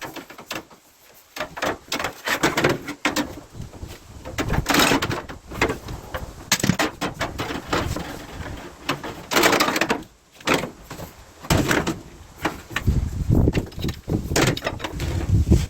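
Irregular clattering, scraping and knocking of half-inch copper water pipe being handled and worked for scrap, with a few heavier thuds near the end.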